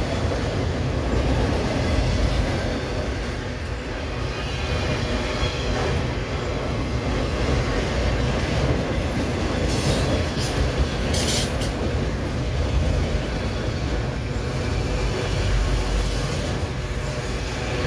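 Freight train of autorack cars rolling past at close range: a steady, loud rumble of steel wheels on rail. A few short, high-pitched wheel squeals come through, one around 10 seconds in, another a second later, and one near the end.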